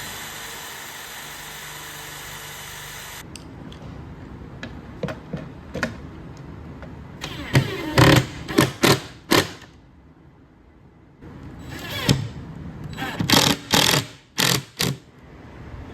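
Workshop tool sounds: a steady hiss for about three seconds, then scattered clicks and knocks and two runs of short, loud bursts.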